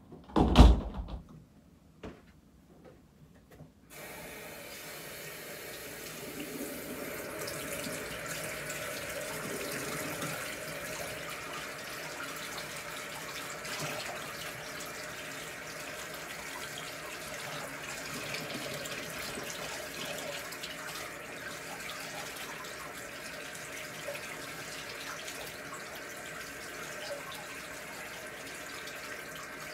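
A single loud thump about half a second in, then a bathroom sink tap running steadily from about four seconds in.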